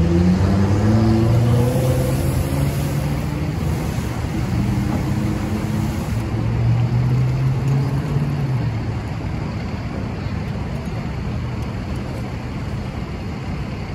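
A vehicle engine humming, its pitch stepping up over the first couple of seconds and then holding until it fades about eight seconds in, over a steady rush of a fire hose spraying water and foam onto a smoking car.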